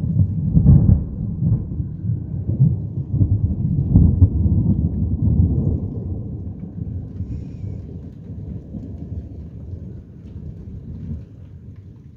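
Loud thunder that breaks in suddenly and rumbles on, mostly low, with peaks about a second in and about four seconds in, then fades slowly away.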